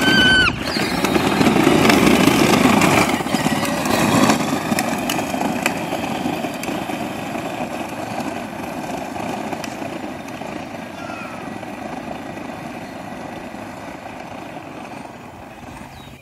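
12-volt Power Wheels Stinger XS ride-on buggy driving off: the whir of its electric drive motors and gearboxes with its wheels rolling on asphalt, fading steadily as it pulls away.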